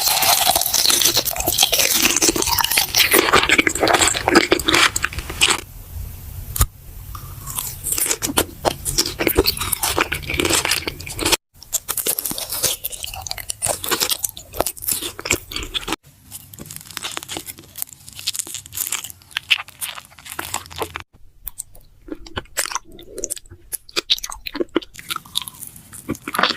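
Close-miked eating: crunchy bites and chewing with crackling crunches, heaviest in the first few seconds, in several separate clips that cut off abruptly.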